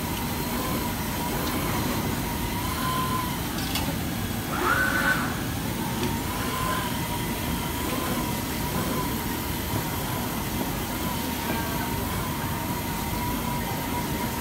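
FK Universal 8 automatic fabric cutter running: a steady high whine that swells slightly every second or two, over a dense low machine and factory hum. About five seconds in, a brief louder, higher tone sounds.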